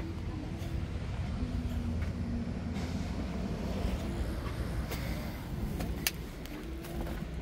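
Steady low vehicle rumble, with a couple of sharp clicks past the middle.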